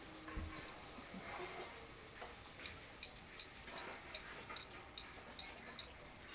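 Puris deep-frying in hot oil in a wok, a quiet sizzle. From about halfway in it carries a run of sharp crackles and light ticks as the puris are pressed and turned with a slotted spoon.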